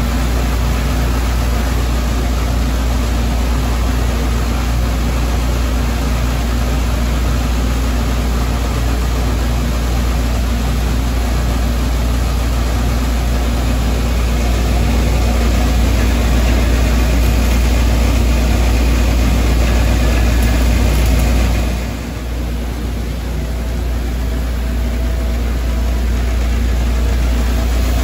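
Steady low machinery hum with a hiss over it. It dips briefly about three-quarters of the way through, then comes back.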